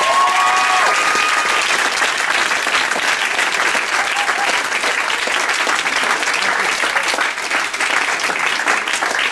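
Audience applauding steadily after an a cappella song, with a brief high cheer over the clapping near the start.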